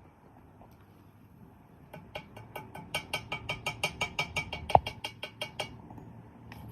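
Rapid metallic tapping, about five or six ringing strikes a second, starting about two seconds in and stopping just before the end, with one louder knock partway through.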